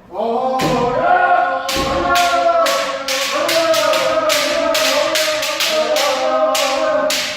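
A group of kendo students giving one long, sustained kiai shout together. Under it come rapid sharp impacts, several a second, from strikes and stamping footwork in the drill.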